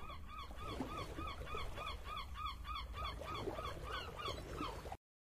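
Rapid run of short honking, goose-like calls from the slot game's soundtrack, about three or four a second, cutting off abruptly near the end.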